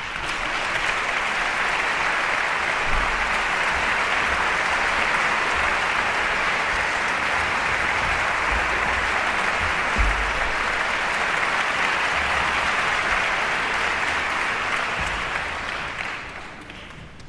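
Concert-hall audience applauding steadily, dying away near the end.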